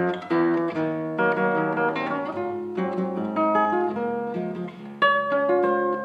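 Background instrumental music: a plucked-string melody of sustained notes, with a sharp new note about five seconds in.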